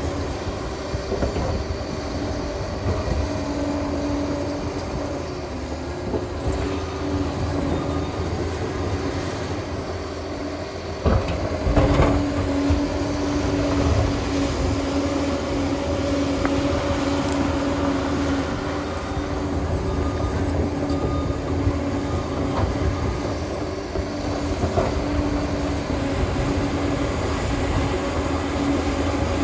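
Liebherr PR 746 crawler dozer running steadily, with a held whining tone over the machine noise and a louder knock about eleven seconds in.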